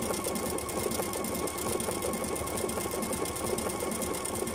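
Pfaff Performance Icon sewing machine running steadily, with rapid, even needle strokes as it stitches a stretch seam through doubled fabric.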